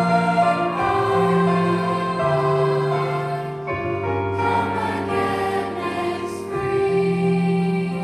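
A mixed middle-school chorus singing in parts, holding long notes, with the chord changing a few times.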